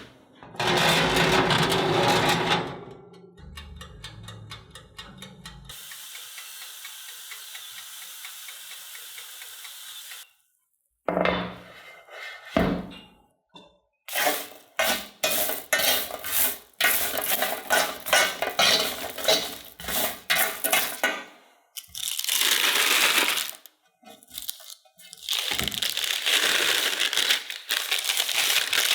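Crisp baked potato snacks cracking and crunching as they are handled and broken apart, with clinks of dishes. Early on there are a few seconds of rapid ticking, then a steady hum, before the crunching sets in.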